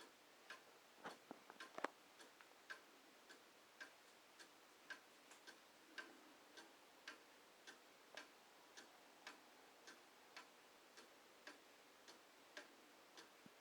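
Antique Gordian Hettich & Sohn Black Forest cuckoo clock ticking faintly and evenly, about two ticks a second, with a few quick extra clicks about a second in.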